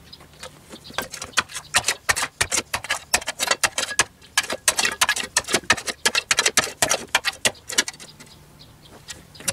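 A hand tool scraping and chipping at dirt and rubble at the foot of a brick wall's concrete foundation: a fast run of sharp knocks, about four a second, that stops near the end.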